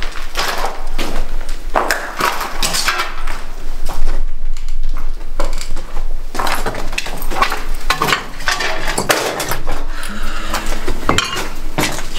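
Clattering and clinking of hard objects: many knocks in quick succession.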